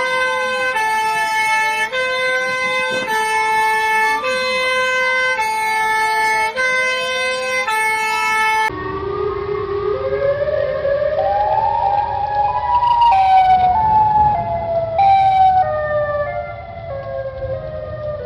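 Emergency-alert-style alarm: two stacked tone chords alternate high and low about once a second, with a wailing tone sliding slowly up and down across them. About nine seconds in it switches to a siren tone that glides up and then steps down in pitch over a low rumble.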